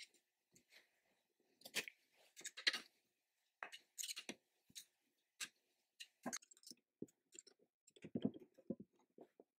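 Faint, irregular metal clicks and light rattles from hands handling and adjusting a chain mortiser's cutting chain and guide bar.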